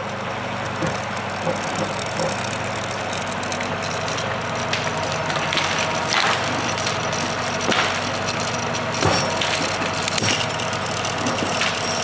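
John Deere 2750 tractor's diesel engine running steadily under heavy load while its three-point skidding winch drags a log, with several sharp cracks and knocks along the way.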